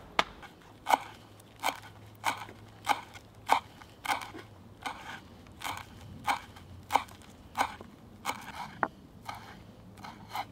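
Kitchen knife chopping fresh coriander on a wooden cutting board, a steady series of crisp chops at about three every two seconds.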